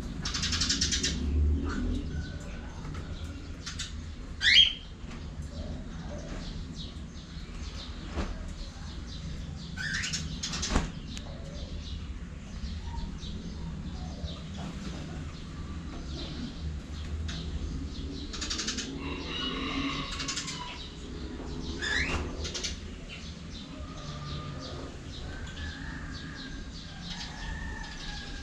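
Pet cockatiels in their cage, flapping their wings and chirping. Three short upward-sliding whistles stand out among softer chirps and held notes.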